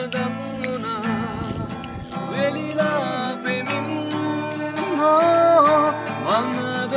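A man singing a slow melody with wavering, held notes to his own acoustic guitar accompaniment. The loudest sustained notes come about five seconds in.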